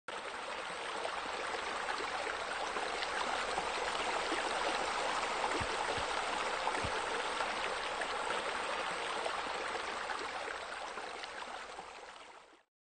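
Steady sound of flowing, splashing water, fading out and stopping shortly before the end.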